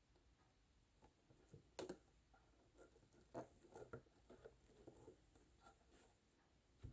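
Faint handling noises: light taps, clicks and rustles as small sticks are hot-glued onto a plastic jug, with a sharper click just under two seconds in and another at the end.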